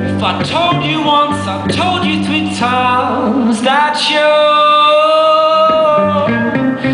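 Live music: a man singing over instrumental accompaniment, holding one long note in the middle.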